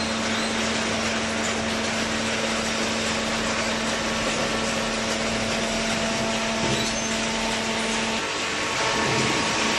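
Hydraulic cardboard baler running: its electric motor and hydraulic pump give a steady hum, which changes tone about eight seconds in and gets slightly louder near the end.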